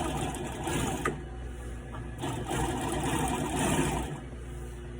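Adler 67 industrial sewing machine running in short runs, stitching through heavy ratchet-strap webbing, with a brief let-up and a single sharp click about a second in.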